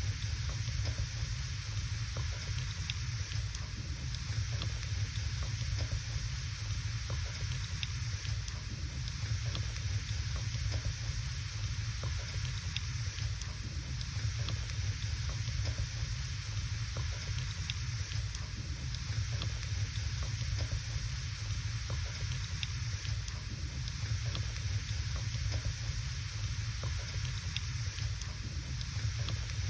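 Wood fire burning in a fireplace: scattered small crackles and pops over a steady hiss and a low rumble.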